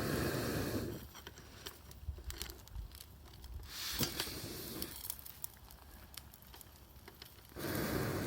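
Wood campfire crackling with scattered sharp pops. A louder breathy rushing noise comes at the start and again near the end.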